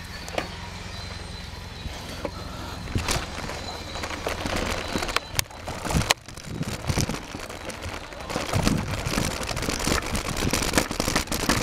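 Mountain bike rolling downhill over rough, loose dirt: tyres crunching and the bike rattling over bumps, a dense run of clicks and knocks that gets busier after about three seconds. The soil is soft and slippery, grabbing at the tyres.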